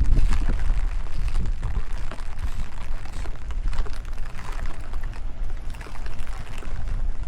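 Strong wind buffeting the microphone in a low, gusting rumble, with rain falling and drops spattering close by.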